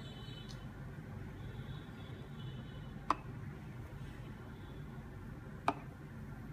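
Steady low background hum with two short, sharp clicks about two and a half seconds apart.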